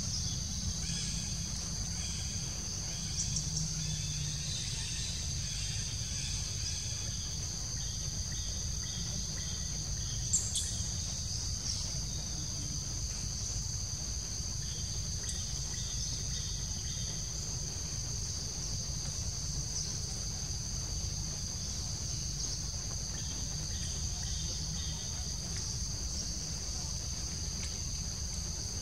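Steady high-pitched drone of a forest insect chorus, two even tones that hold unbroken, over a low rumble. One brief click sounds about ten seconds in.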